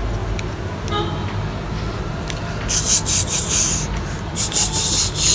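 Rustling, scraping handling noise as a small cosmetic container is unwrapped and opened: two bursts of crinkly rasping about three seconds and four and a half seconds in, over a steady low hum.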